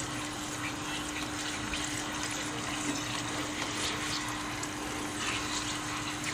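Thin tomato-and-milk gravy simmering in a nonstick kadai, with a steady wet bubbling hiss and a spatula stirring through it. A steady low hum runs underneath.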